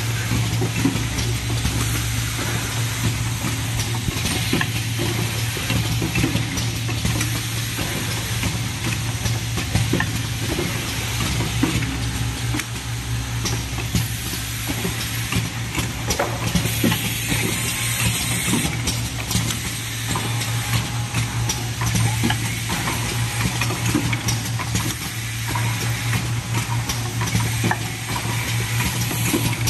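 Automatic pipette-tip filter assembly machine running: a steady low hum from its vibratory bowl feeder under a constant rattle of small parts and frequent sharp clicks of pneumatic actuators, with a louder hiss for a couple of seconds about halfway through.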